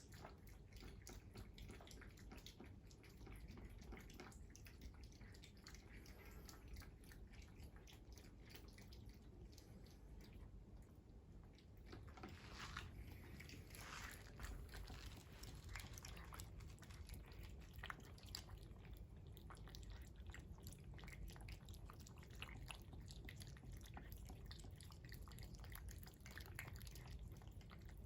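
A cat eating: faint, quick chewing with many small crunching clicks.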